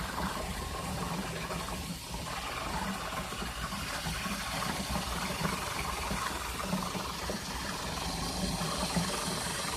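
Two empty aluminium soda cans under a running tap, rattling rapidly against each other as the water stream bounces them. The steady, uneven rattle over the hiss of the water sounds like a little gas engine idling.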